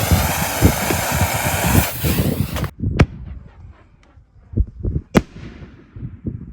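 A loud steady hiss with low thuds that cuts off suddenly, then two sharp firework reports about two seconds apart, each trailing off, with smaller thuds between: 5-inch canister shells going off.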